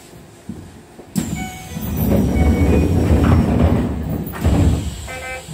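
Keisei commuter train's passenger doors working at a station stop. About a second in, a sudden rush of air comes with short beeping tones. A loud rumble follows for about three seconds, then a thump and another short run of beeps near the end.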